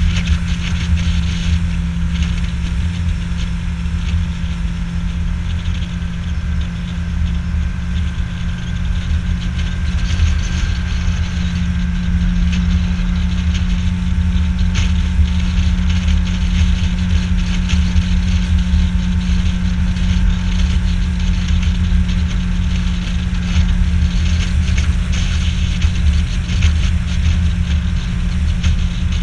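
Outboard motor of an aluminium fishing boat running at a steady cruising speed, a constant drone that does not change pitch, with water hissing along the hull.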